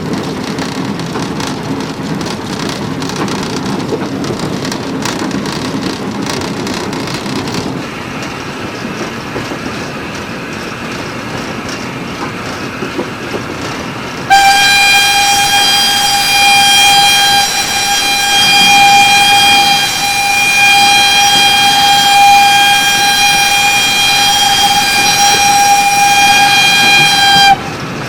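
WWII Kriegslok steam locomotive heard from the footplate: running noise with clicking from the track, then about halfway through the steam whistle is blown as one long steady note for some thirteen seconds, louder than everything else, and cut off sharply.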